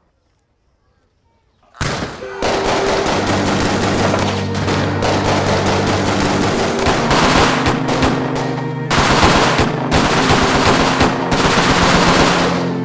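Heavy automatic gunfire: a firefight of rapid machine-gun and submachine-gun bursts that breaks out suddenly about two seconds in. It goes on with short lulls, over low sustained music.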